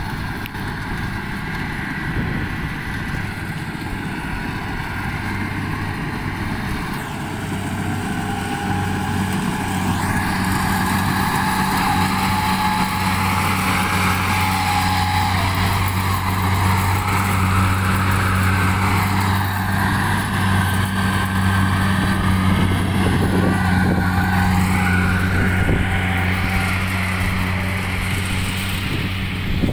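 Rice combine harvester's engine running with a steady low drone, which grows louder several seconds in.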